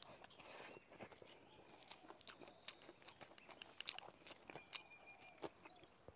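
Faint, close-miked chewing of a mouthful of rice and braised pork, with many small mouth clicks and smacks.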